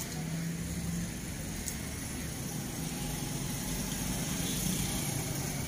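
Steady low rumble of road traffic from passing cars.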